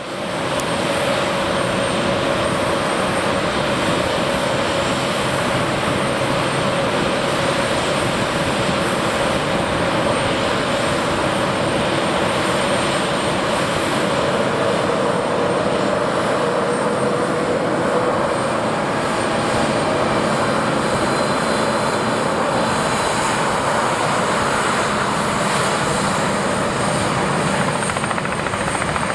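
Airbus A320-216 jet airliner with CFM56-5B engines, landing: steady jet engine noise on final approach, through touchdown and the rollout along the runway. A faint hum inside the noise drops slightly in pitch about halfway through, around touchdown.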